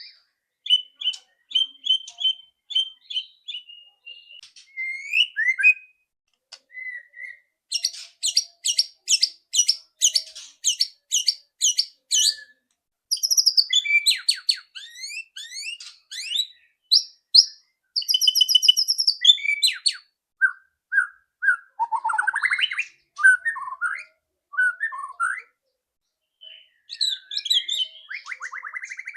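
White-rumped shama singing: clear whistled notes and slurred phrases broken by stretches of fast, loud rattling clicks, the 'ketrek' call.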